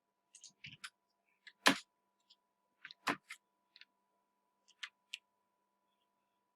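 Computer mouse clicking: a dozen scattered single clicks, two of them louder in the first half, over a faint steady whine.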